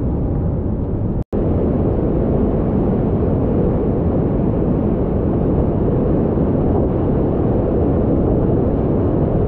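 Loud, steady roar of big whitewater rapids, a deep rushing noise from heavy foaming river water. It cuts out for an instant about a second in, then carries on unchanged.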